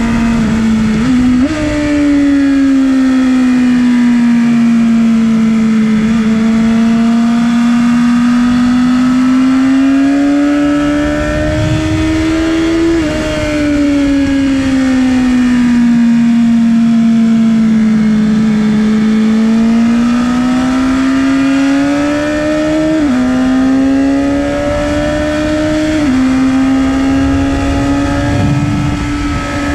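2019 BMW S 1000 RR's inline-four engine running hard on track. Its pitch falls as the bike slows into corners and climbs again under acceleration, with several sudden steps in pitch at gear changes.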